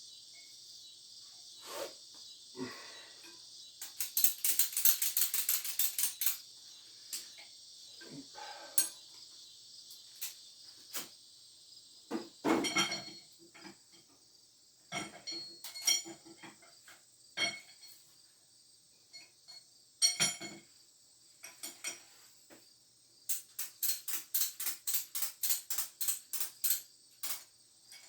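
Scattered metal clinks and knocks as a heavy four-jaw chuck is handled, with two runs of rapid clicks, a short one about four seconds in and a longer one near the end. Crickets chirp steadily underneath.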